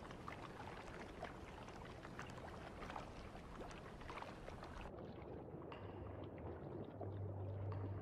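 Faint river water lapping and trickling, with many small drips and splashes. The sound turns duller about five seconds in.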